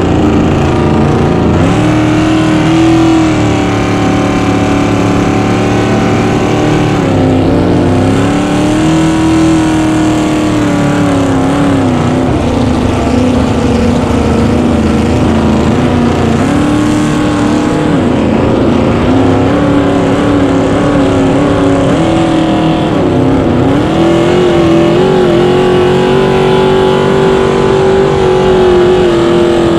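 Small-block Chevy V8 of a cracker box race boat running hard at high revs, its pitch dipping briefly several times and climbing back.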